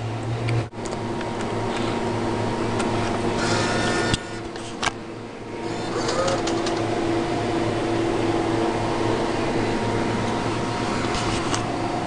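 Claw machine's small motors running with a steady whir as the claw moves, dropping back briefly about four seconds in, with a couple of sharp clicks, then starting again.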